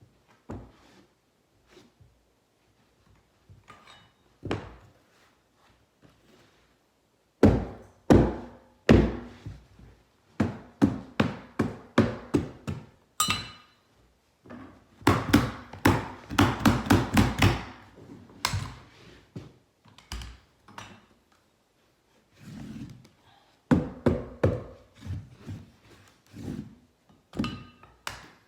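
Repeated dull thuds of tool strikes while a carpet runner is fastened to the stairs. They come in irregular runs of blows with short pauses between, the quickest and loudest run about halfway through.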